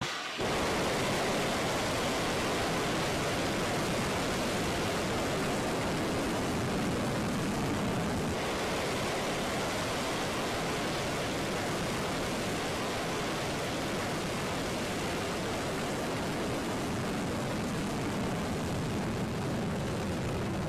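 Ballistic missile's rocket engine at launch: a dense, steady rushing noise that starts abruptly at ignition and holds as the missile lifts off and climbs, fading slightly.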